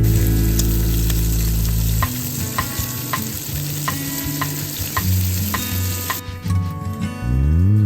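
Food sizzling as it cooks, a dense hiss that stops about six seconds in, over background music.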